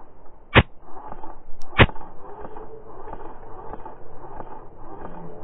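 Slowed-down sound of an indoor airsoft game, pitched low and drawn out: two loud sharp cracks about a second apart, near the start, over a run of fainter, evenly spaced ticks and a low rumble.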